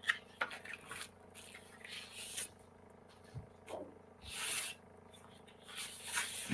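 Sheets of cardstock rustling and sliding against each other as they are picked up and handled, in a string of short swishes and scrapes with a longer slide about four and a half seconds in.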